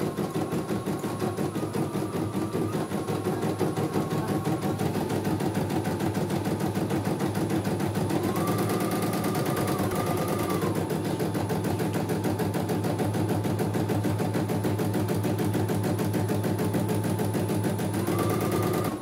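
CNY E900 computerized embroidery machine stitching a design: a fast, steady rattle of needle strokes, with a faint whine that rises and falls about midway and again near the end.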